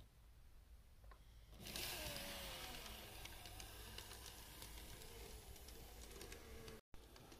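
N-gauge DE10 diesel locomotive model running on sectional track: a faint, wavering motor whine with light clicks from the wheels, coming in about two seconds in and cutting off abruptly just before the end.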